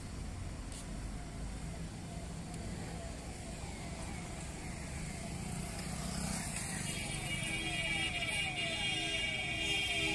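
Road traffic running along a city road, a steady rumble of cars and motorbikes, with a vehicle passing close about six seconds in. From about three seconds a repeating falling tone, a few times a second, grows louder behind it.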